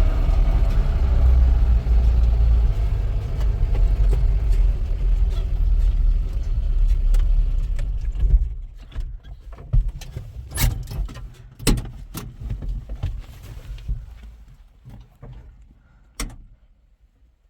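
A vehicle's low, steady engine and road rumble that cuts off about eight seconds in, followed by a scatter of clicks and knocks that fade away.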